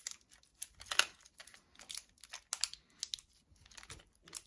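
Thin plastic wrapping being peeled and torn off small clear plastic cases, in irregular crinkles and crackles, the loudest about a second in.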